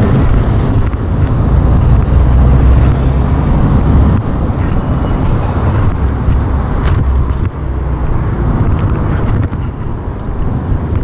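Loud low rumble of street noise on a handheld camera's microphone while a car drives past, loudest over the first four seconds and then easing off, with a few light clicks.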